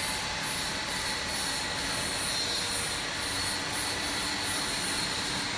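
GFJ-90KW high-speed mixer running under test: a steady mechanical hum and hiss with a constant high-pitched whine.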